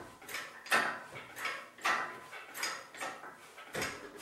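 Hydraulic engine hoist being pumped by its hand lever to raise the engine: a run of mechanical clacks, about one every half second.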